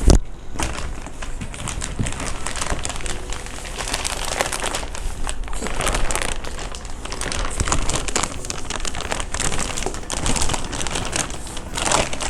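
Packaging rustling and crinkling continuously, with many small crackles, as gaming chair parts are pulled out of their box. A single sharp knock right at the start.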